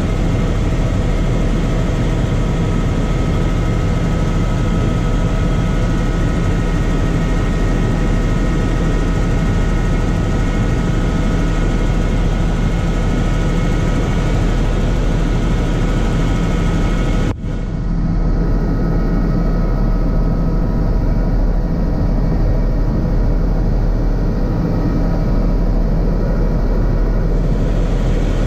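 Helicopter cabin noise in flight: a loud, steady drone from the rotor and engine with several steady whining tones above it. About two thirds of the way through, the sound cuts out for an instant and comes back duller for several seconds.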